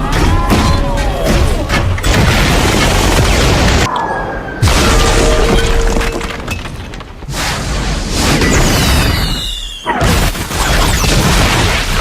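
Loud, distorted booming and crashing noise that cuts off and restarts abruptly several times, with some music mixed in.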